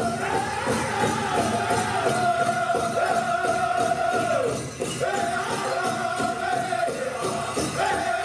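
Powwow drum group singing high, held notes over a steady drumbeat on a large powwow drum, the song for a grass and chicken dance contest; the singing breaks off briefly about four and a half seconds in and again near the end while the drum keeps going.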